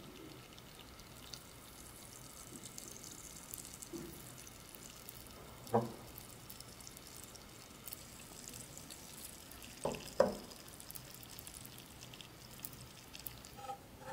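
Sugar syrup cooked to about 140 °C bubbling and crackling softly in a stainless steel saucepan as a skewered mini apple is rolled through it. A few light knocks against the pan, one about six seconds in and a pair about ten seconds in, the last the loudest.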